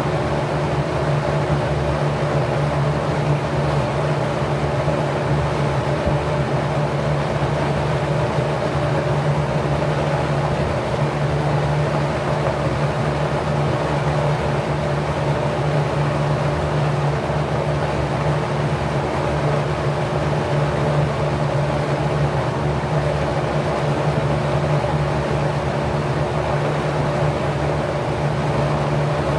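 Packard 99319 single-speed 1/5 hp electric motor running at its rated 1050 rpm, spinning a 20-inch four-blade LAU propeller at 27° pitch. A steady motor hum over the even rush of air moved by the blades.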